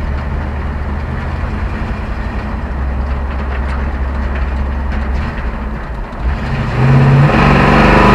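Chevrolet pickup's V8 through its modified exhaust, heard from inside the cab with the rear window cracked open: a steady low drone while cruising, then a full-throttle pull about seven seconds in, louder, with the revs climbing.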